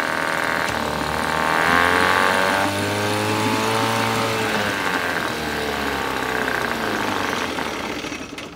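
1972 Johnson 6 hp two-stroke outboard running, revving up about a second in and easing back down a few seconds later, then stopping just before the end.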